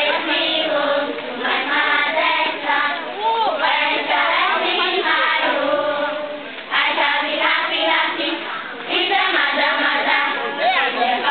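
A group of children singing a marching song together, sung in phrases with short breaks between them.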